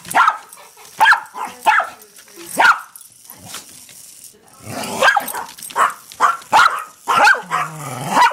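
Dog barking at a Hexbug toy: four sharp barks in the first three seconds, a short pause, then a faster run of barks.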